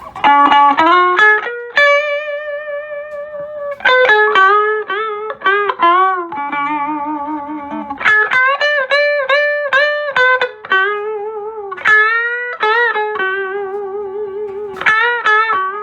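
Electric guitar with both pickups selected, played through a Fender Showman amp: a melodic single-note lead line with string bends and vibrato.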